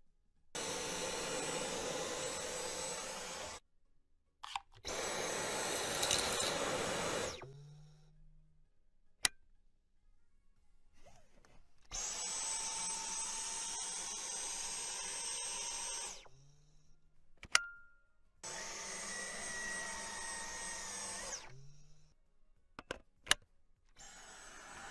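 Cordless stick vacuum motor running with a steady high whine, switched on and off in five spells of about two to four seconds each. Sharp clicks fall in the gaps between spells.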